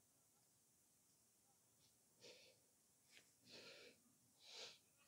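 Near silence, broken by three faint, short breathy puffs starting about two seconds in.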